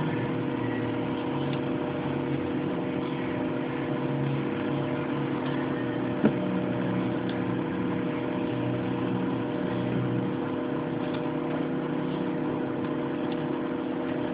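Steady background hum over a hiss, with a few constant tones held throughout, and a single sharp click about six seconds in.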